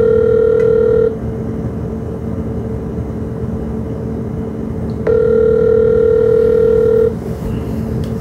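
Ringback tone of an outgoing phone call waiting to be answered: a steady ring ends about a second in, and the next one sounds for two seconds from about five seconds in, with a steady low hum underneath.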